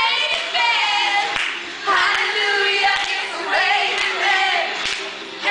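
A group of girls singing and chanting a song together, several voices at once, in short phrases.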